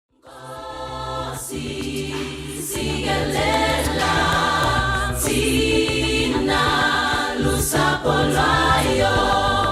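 Choir singing: a group of voices enters out of silence just after the start and swells in over the first couple of seconds into full choral music.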